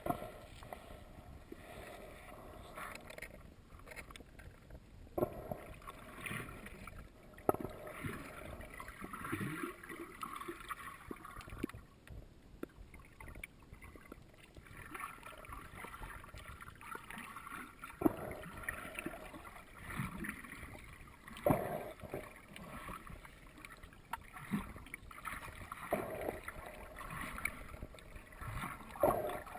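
Underwater sound picked up by a camera held below the surface: muffled, swelling water movement and gurgling, with several sharp knocks.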